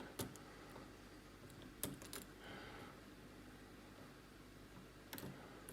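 Faint, sparse metallic clicks of a hook pick and tension wrench working the pins inside a Master Lock 410 lockout padlock, a few separate ticks spread out.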